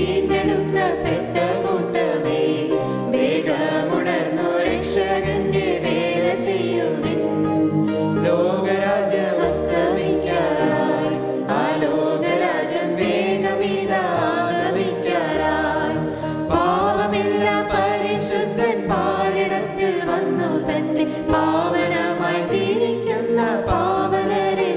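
A small group of singers singing a Malayalam Christian hymn, with instrumental accompaniment whose low bass notes change every second or two.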